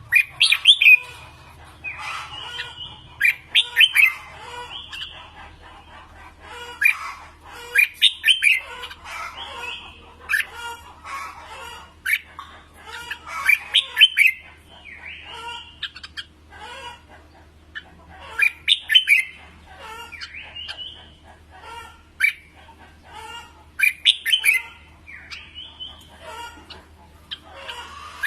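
Red-whiskered bulbul singing: short, loud, rapid warbled phrases repeated every few seconds, with a steady low hum underneath.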